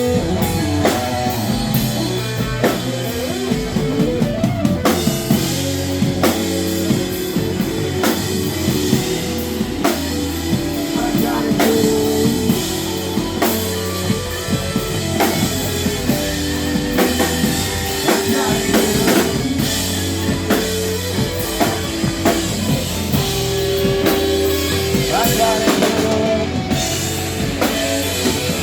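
Instrumental rock music played on drum kit, guitar and bass, with a steady beat.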